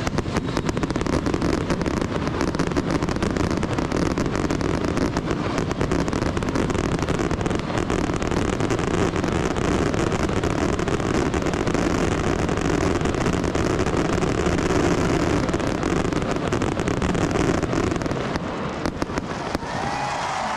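Fireworks display: a continuous run of crackling bursts and bangs, easing slightly near the end.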